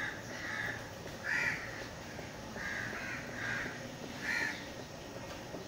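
A bird calling repeatedly: six short calls spread over about four and a half seconds, over a faint steady hiss.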